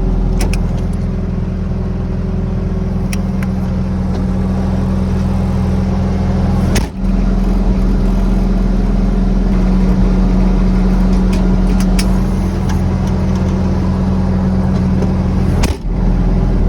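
Bobcat S650 skid steer's diesel engine running steadily. The sound breaks off briefly twice, about seven seconds in and near the end.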